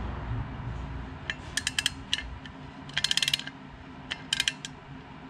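Light metallic clicks and ticks in short clusters, with a quick run of about eight clicks about three seconds in, as the needle-and-seat adjuster is turned into a Holley 2300 carburetor's fuel bowl to set the float level.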